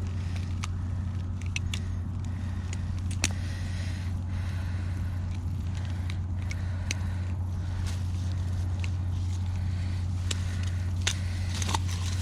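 A steady low hum, with scattered small clicks and ticks over it.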